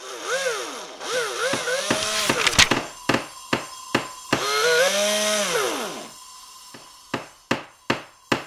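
Power saw cutting wood, its whine rising and falling in pitch as it bites, in three passes. Between the cuts come sharp knocks, and near the end a run of four knocks about 0.4 s apart.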